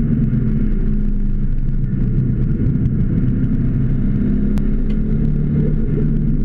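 Car engine heard from inside the cabin, running steadily under load while driving a circuit, its low note holding without big revs up or down. A single sharp click about four and a half seconds in.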